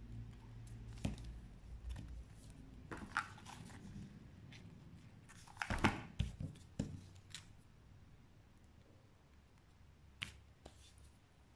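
Quiet rustling and light clicks of small cut paper pieces being handled and pressed together by hand. The loudest rustling comes about six seconds in, and there is a sharp click about ten seconds in.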